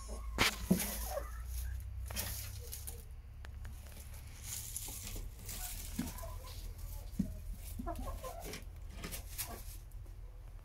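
Laying hens on a straw nest giving scattered quiet clucks, with a few sharp clicks and rustles of straw in between.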